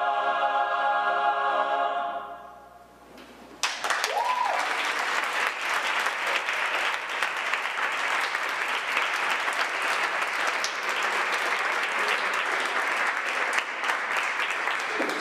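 A choir's final sung chord is held and then fades away; after a short lull, applause breaks out suddenly and carries on steadily, with a brief rising-and-falling whoop just after it starts.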